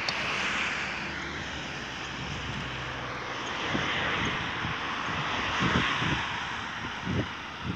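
Steady rushing traffic and road noise while travelling along a city street, with wind buffeting the microphone in low thumps from about halfway in.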